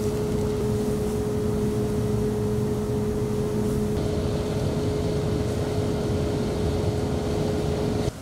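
Stove fire burning hard under a large wok of boiling soup, a steady rushing noise with a constant hum over it. It cuts off abruptly near the end.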